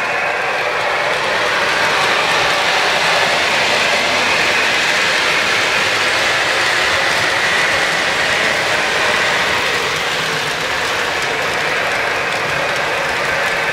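O-gauge model trains running on three-rail track: a steady, even rumble and clatter of wheels and locomotive drive gears.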